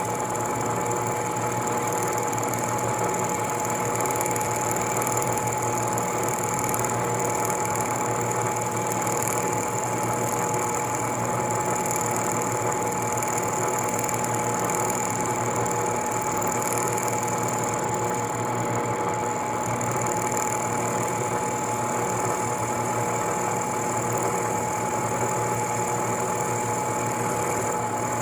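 Bridgeport Series 1 milling machine running steadily while cutting a square keyseat in a small shaft, a constant mechanical whine with a steady motor hum underneath.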